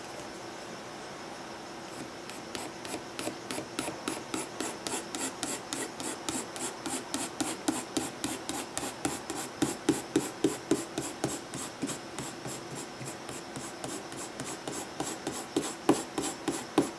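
Pencil shading on sketchbook paper: quick back-and-forth scratchy strokes at about three to four a second, starting about two seconds in, a few strokes heavier than the rest.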